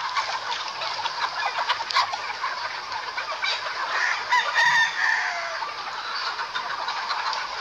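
A large free-range flock of native chickens giving a dense, continuous chatter of clucks and calls, with a rooster crowing about halfway through.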